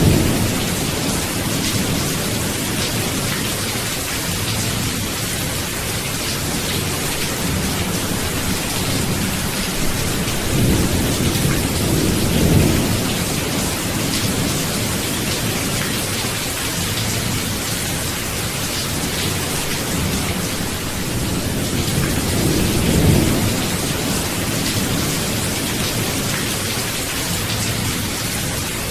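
Steady heavy rain with low rolls of thunder, swelling twice, about twelve seconds in and again about twenty-three seconds in.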